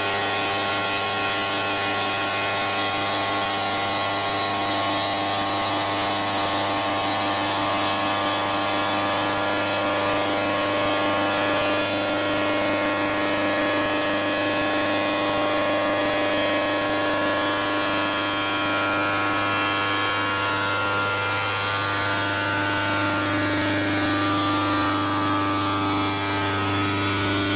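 CNC stone router running steadily, a constant whine of several tones over a low hum.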